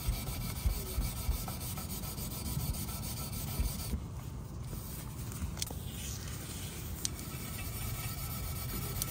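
Fine 0000 steel wool rubbed back and forth over chrome exhaust tip trim, scrubbing off carbon soot buildup: a steady scratchy rubbing with a few light ticks.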